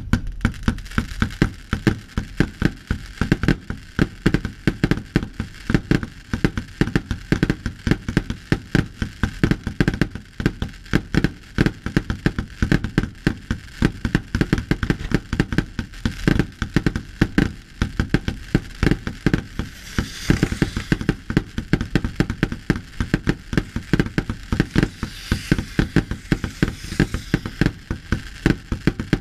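Fireworks barrage: a dense, unbroken run of aerial shell bursts banging several times a second. Stretches of crackling are layered on top about two-thirds of the way through and again near the end.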